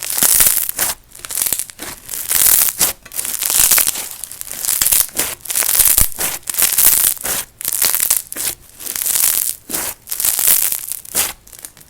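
Crunchy slime with bingsu beads being squished and pressed, crackling and crunching in repeated bursts about once a second.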